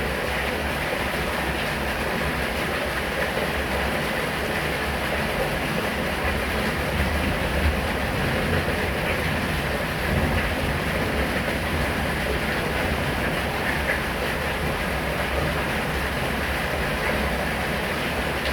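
Rain falling steadily: an even, dense hiss with a low rumble underneath.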